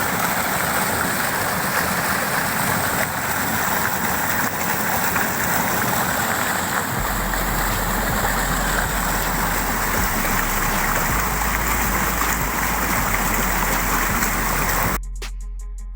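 Rushing water of a waterfall and its stream, a steady loud wash. About a second before the end it cuts off abruptly and music with a regular beat takes over.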